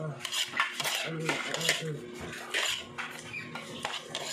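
Metal fork and spoon clinking and scraping against a plate of noodles, several separate sharp clinks.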